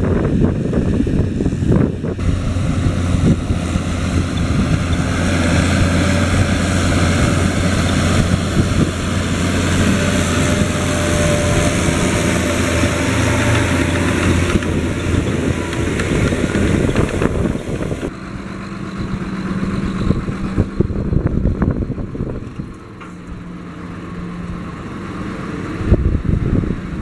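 John Deere 7530 tractor's six-cylinder diesel running steadily under load while pulling a power harrow and seed drill through the soil. Near 18 s the sound changes to a steadier, quieter engine note that grows louder again near the end.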